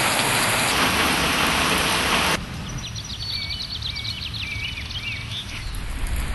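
A loud, even rushing noise, like rain or wind, that cuts off abruptly about two and a half seconds in. Then a run of short, high bird chirps over a quieter background, with a low rumble building near the end.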